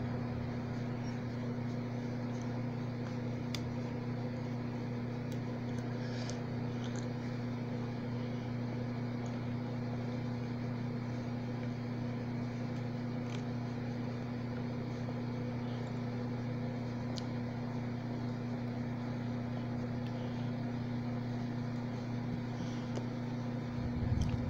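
Steady low electric hum from a mains-powered appliance, with a few faint small clicks as a phone is handled and worked on with a precision screwdriver.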